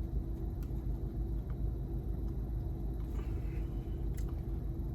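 Steady low rumble with a constant hum underneath and a few faint clicks.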